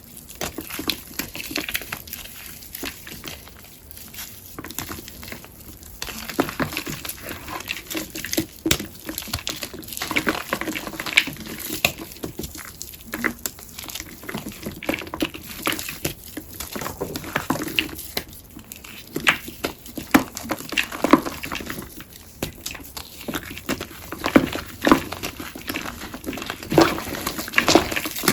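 Gym chalk paste on a sponge being squeezed and crumbled by hand: an irregular run of crunching and crackling, some crunches sharper and louder than others.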